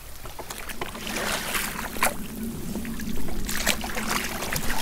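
Shallow seawater sloshing and trickling around a hand and arm reaching into a rock pool, with irregular small splashes.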